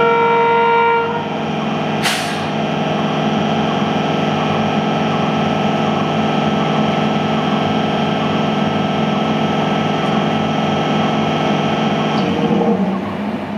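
A train horn blast, several notes held as one chord, ending about a second in. It is followed by a steady drone from train machinery as an express hauled by a WDP4D diesel locomotive draws in alongside a standing MEMU electric train, with one sharp click about two seconds in.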